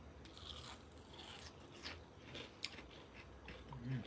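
Faint kitchen handling noises: scattered light clicks and short scrapes over a low steady hum.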